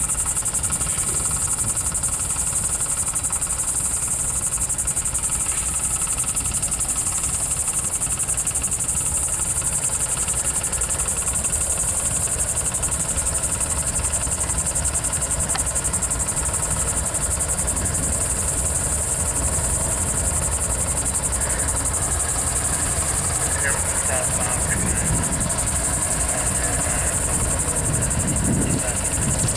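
Diesel locomotives of GE's Evolution Series, a lead ES44C4 and a second unit, each with a V12 four-stroke diesel, rumbling low and steady as they approach slowly at the head of a freight train. Over it runs a steady, high, shrill buzz of insects.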